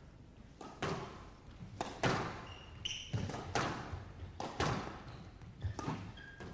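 Squash rally: the ball is struck by the rackets and knocks off the walls, sharp knocks coming in pairs about once a second, with a few short high squeaks of shoes on the court floor.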